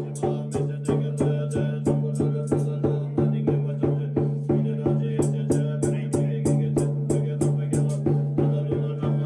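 Music: a steady low drone with an even percussion beat of sharp strikes, about three a second.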